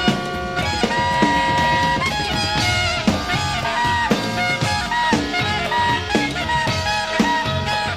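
Live jazz-funk band playing, with held and bending saxophone and horn melody lines over drums and bass, heard from a cassette tape recording.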